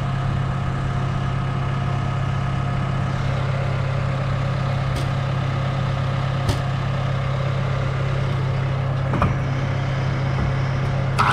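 Aerial lift's engine idling steadily, with a few light knocks. Right at the end a circular saw starts up.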